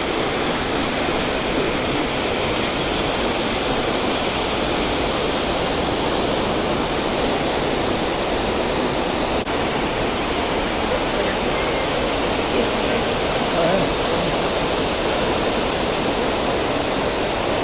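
Multnomah Falls: falling water in a loud, steady, even rush.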